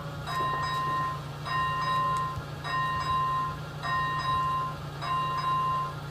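Level-crossing warning bell ringing, the same short ringing tone repeating about once every 1.2 seconds while the red lights flash, warning that a train is coming. A steady low hum runs underneath.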